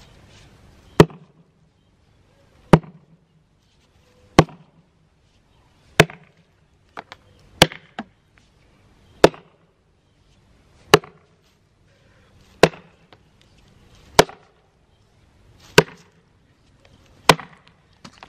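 Axe chopping into a log: eleven sharp, evenly spaced strikes, about one every second and a half.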